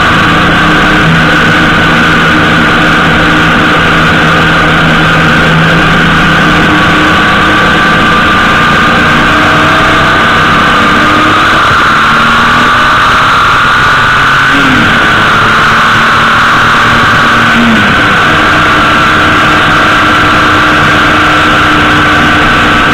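Honda GL1800 Gold Wing's flat-six engine running at road speed under a steady rush of wind and tyre noise on the bike-mounted microphone. The engine note shifts briefly a couple of times partway through.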